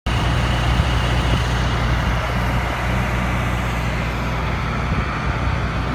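A heavy engine running steadily with a low, even drone.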